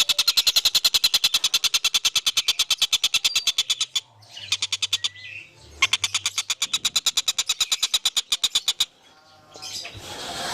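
A bird singing a rapid, even trill of about twelve high notes a second, breaking off twice for a second or two.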